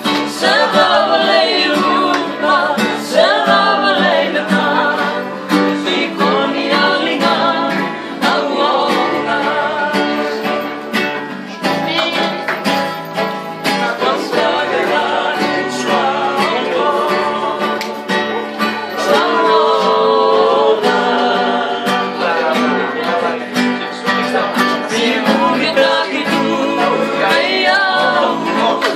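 Men singing, accompanied by two acoustic guitars.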